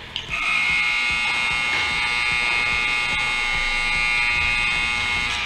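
Rink scoreboard buzzer sounding one long, steady buzz of about five seconds, then cutting off.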